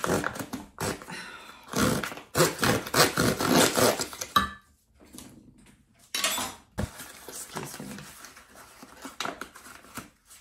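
A bag of flour being cut and torn open with a knife: crinkling and rustling of the bag in irregular bursts, busiest about two to four seconds in, with a sharp rustle a couple of seconds later and a few small clicks.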